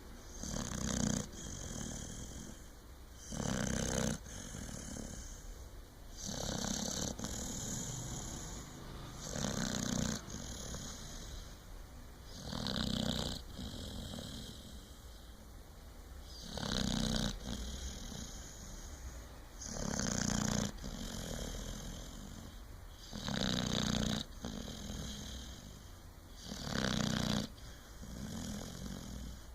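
Snoring: one snore about every three and a half seconds, about nine in all, in a slow, even rhythm.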